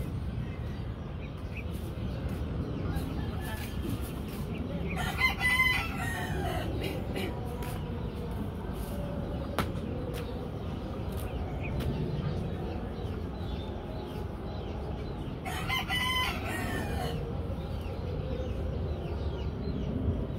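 A rooster crowing twice, about ten seconds apart, over a steady low background rumble.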